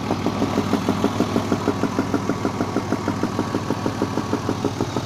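BMW M50 straight-six idling, recorded close up in the engine bay, with a rapid, even ticking knock in time with the engine: the strange knock the owner is trying to trace.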